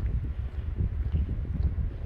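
Strong gusty wind buffeting the microphone, heard as a low, uneven rumble that swells and falls.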